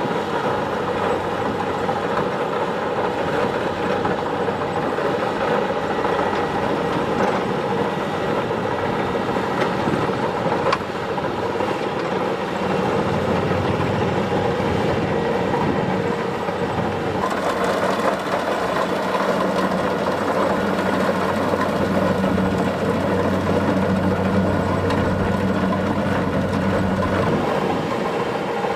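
Kubota DC-70 Plus rice combine harvester running steadily, its diesel engine and harvesting machinery making a continuous drone. The sound changes about seventeen seconds in, with a deeper hum after that.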